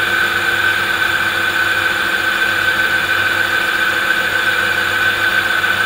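Electric bike's rear hub motor spinning the raised rear wheel with no load at about 50 km/h, a steady high whine over a low hum. This is the test run for tuning the motor controller's power timing, where the aim is the smoothest, least vibrating and fastest rotation.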